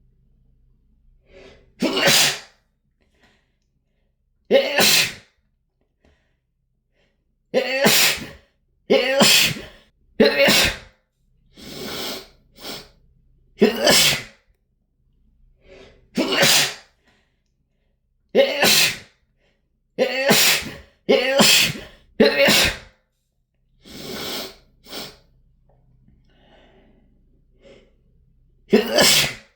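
A person sneezing loudly again and again: about fifteen sneezes, one every one to three seconds, a few of them softer than the rest, with faint in-breaths before some of them.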